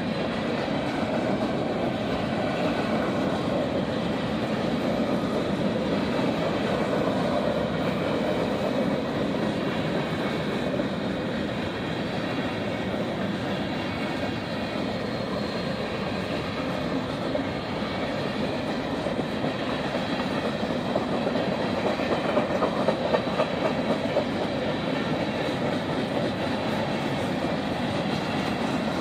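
Freight train passing at a grade crossing: a steady rumble of rolling cars with the clickety-clack of wheels over rail joints, and a few sharper clanks about three-quarters of the way through.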